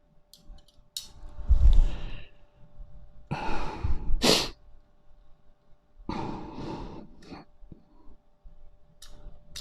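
A man sighing and breathing out heavily several times, with a few faint light clicks near the start.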